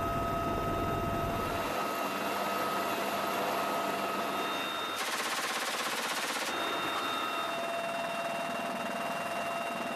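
Steady whine of a military helicopter's turbine engines with several fixed tones. About five seconds in, a rapid rattling burst of machine-gun fire lasts about a second and a half.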